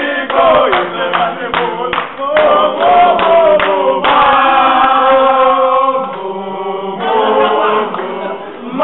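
A group of young men singing together in chorus, with rhythmic hand clapping at about three claps a second for the first few seconds, then long held notes sung together.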